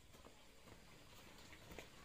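Near silence: faint background hiss with a few soft ticks about half a second apart.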